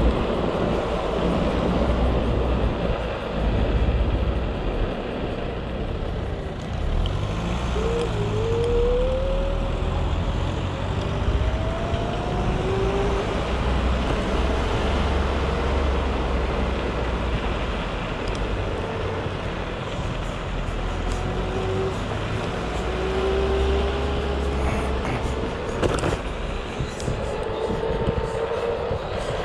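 Motor scooter engine running under a heavy low rumble, its pitch rising several times as the scooter speeds up.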